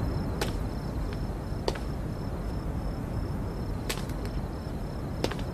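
Quiet background ambience: a steady low rumble with faint, high, evenly pulsed insect chirping throughout, and about five sharp clicks scattered through.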